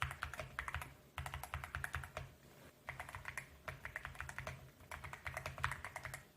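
Fast typing on a YUNZII AL66 mechanical keyboard fitted with YUNZII Milk linear switches: rapid keystroke clacks in four runs, split by short pauses.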